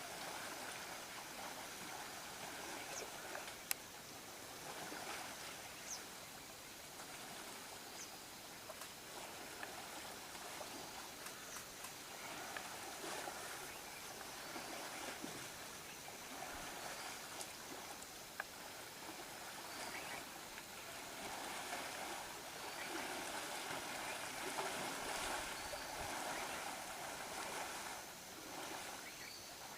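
River water running and splashing faintly and steadily, with scattered short high chirps and a few sharp ticks.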